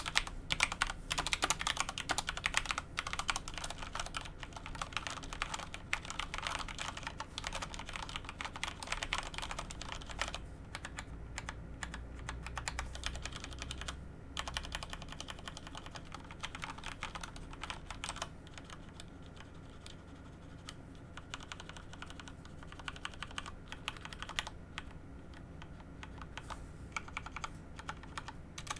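Typing on a Corsair K70 Rapidfire mechanical keyboard with Cherry MX Speed linear switches: a fast, continuous clatter of keystrokes that thins out and gets quieter over the second half.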